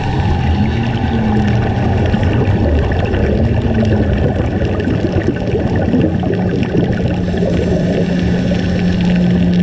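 Underwater ambience recorded through a camera's housing: a steady rush of water noise, thick with fine crackling, under a low hum that wavers in pitch and then holds steady over the last few seconds.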